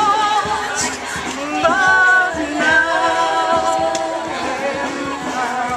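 A small group of women singing together without instruments, one voice carried through a handheld megaphone, in long held notes.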